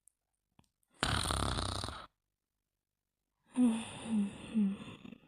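Snoring while asleep. One long, noisy breath comes about a second in. From about three and a half seconds, a run of short snores with a tone in them follows, about two a second.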